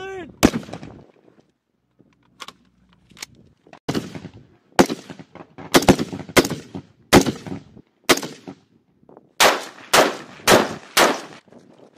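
Single rifle shots from M4-style carbines, about a dozen, fired one at a time half a second to a second and a half apart, each with a short echoing tail.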